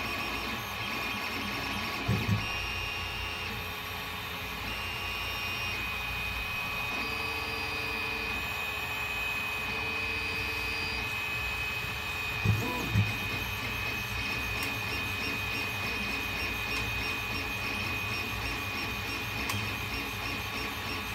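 gMax 1.5XT+ 3D printer running, laying down infill: its stepper motors give off steady tones that jump to new pitches every second or two as the print head changes moves, over a constant high tone. Two quick pairs of low thumps come about two seconds in and about twelve and a half seconds in.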